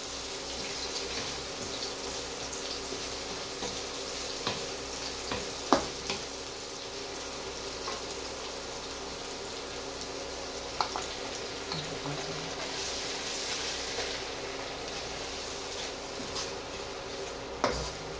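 Sliced onions sizzling in hot oil in a nonstick wok, stirred with a wooden spatula that knocks against the pan now and then, loudest about six seconds in and again near the end.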